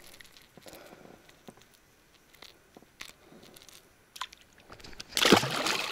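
Soft wet handling noises and light clicks as a caught fish is dealt with carefully by hand. About five seconds in there is a short, loud rushing noise.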